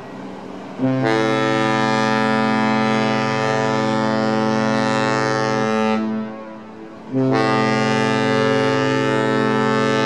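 Holland America Line Westerdam's ship horn sounding a long, low blast of about five seconds, then, after a gap of about a second, a second long blast.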